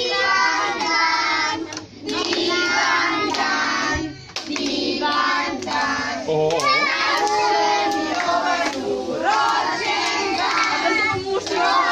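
A group of children and adults singing a birthday song together in phrases, with hands clapping along.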